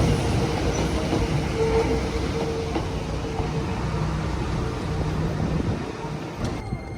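Hakone Tozan Railway 2000 series electric train running on the track, a steady rumble with a held hum, fading away near the end.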